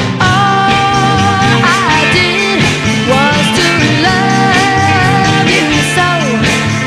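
Music with a steady beat and long held melody notes, an instrumental stretch between sung lines.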